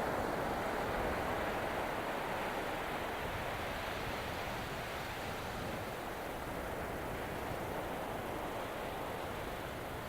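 Steady wash of ocean surf and wind, easing off a little over the seconds.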